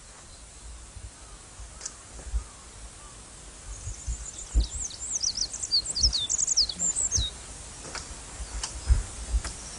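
A small bird singing a quick run of high chirps and downward-sweeping whistles for about three seconds in the middle, over scattered low thumps.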